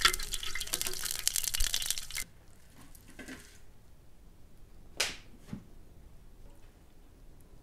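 Vegetables sizzling loudly in hot oil in a large steel frying pan, cutting off suddenly about two seconds in. After that, faint handling sounds with one sharp knock about five seconds in.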